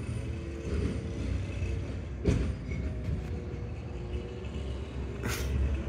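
Recycling truck's engine running with a steady low rumble, with a sharp knock about two seconds in and a short hiss near the end.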